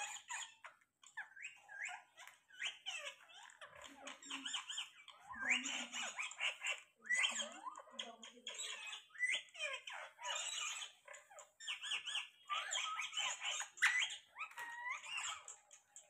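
Rose-ringed parakeets chattering: a steady run of short, rapid calls that glide quickly up and down in pitch, with speech-like mumbling among them.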